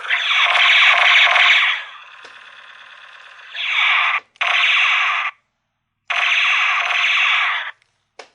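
Toy ray gun giving off electronic buzzing zap sounds in four loud bursts of about one to two seconds each, with a quieter steady buzz after the first and short silent gaps before the last.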